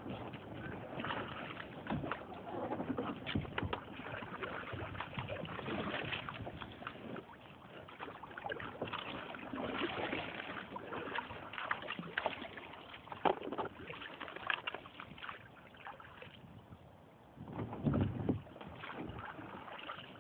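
Canoe being paddled through flood water: irregular paddle splashes and drips, with water sloshing and occasional knocks against the hull.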